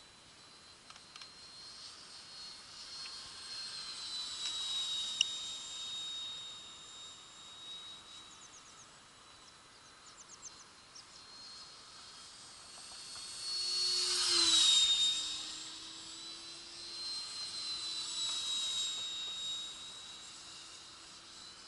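Radio-controlled model aircraft flying overhead, its motor giving a steady high-pitched whine that waxes and wanes as it circles. About two-thirds of the way in it passes close, loudest, and its pitch drops as it goes by.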